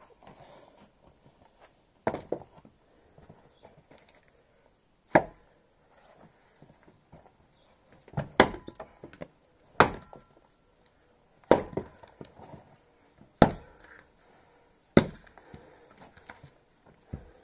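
Axe splitting a log on a chopping block: about eight hard blows, one every couple of seconds.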